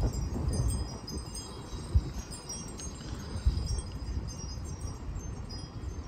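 Metal tube wind chime ringing in gusty wind, its high tones scattered and overlapping, over a low wind rumble on the microphone that is strongest in the first second, then eases.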